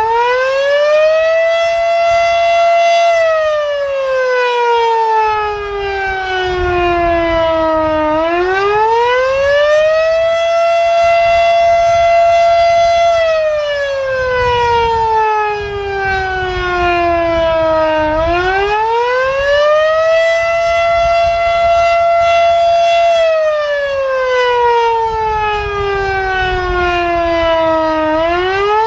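Federal Sign & Signal Type 7 three-phase outdoor warning siren sounding the attack signal: a rising and falling wail. Each cycle climbs for about two seconds, holds at top pitch for about three, then slides down for about five, repeating every ten seconds or so.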